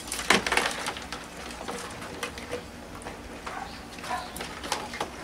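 Live land crabs in a plastic tub, their shells and legs clicking and scraping against the tub and on wet grass as a hand rummages among them to pick one out. Irregular short clicks and rustles, busiest in the first second.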